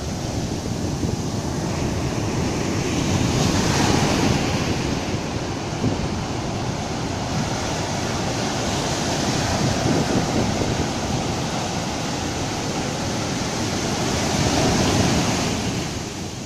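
Surf on a sandy beach: small waves breaking and their foam rushing up the sand and draining back (swash and backwash), a continuous wash that swells into louder surges every few seconds.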